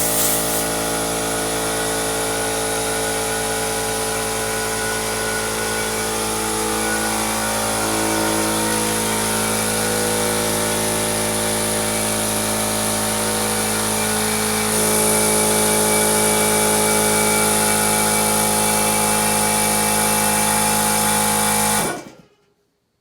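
Oil-lubricated air compressor running its break-in with the tank valve open: a steady motor hum with air hissing, slightly louder about fifteen seconds in. Near the end it stops abruptly and winds down as the 15 amp breaker it shares with a hot tub trips, too small a circuit for the compressor.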